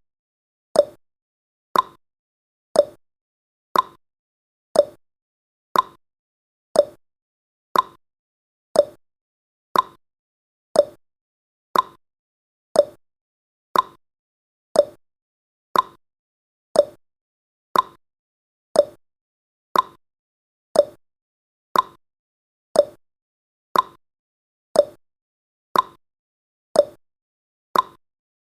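A countdown timer's tick sound effect, one short sharp tick each second at an even pace, each dying away quickly.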